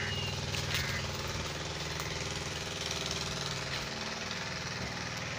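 An engine running steadily with a rapid low chugging.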